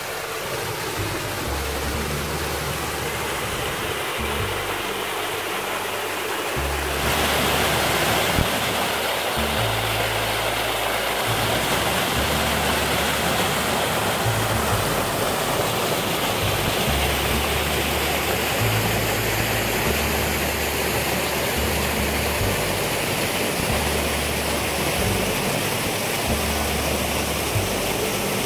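Rushing water of a reservoir spillway waterfall running high with snowmelt, louder from about seven seconds in, under background music with a slow, stepping bass line.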